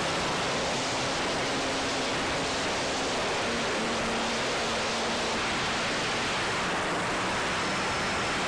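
Steady rushing noise with no rhythm or breaks, most likely airflow over the onboard camera of a flying RC plane.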